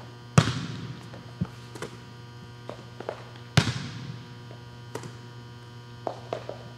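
Two sharp impacts ringing out in a large gym hall, one near the start and one about three seconds later, with lighter taps in between, over a steady low hum.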